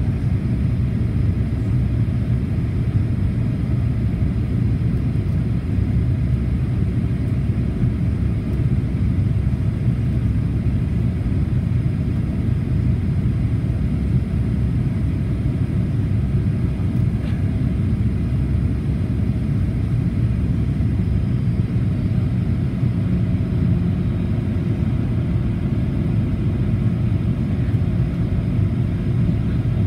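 Steady low rumble of a Boeing 737-800's CFM56-7B engines and rushing airflow heard inside the passenger cabin during the descent on approach.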